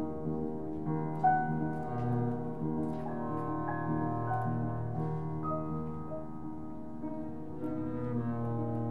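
Upright piano and bowed double bass playing together in slow, sustained notes, with the bass holding a low tone beneath the piano.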